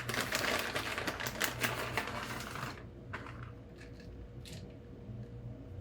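Shredded cheese being handled and sprinkled onto a baked potato: a dense, quick rustle of many light ticks for about three seconds, then a few faint taps.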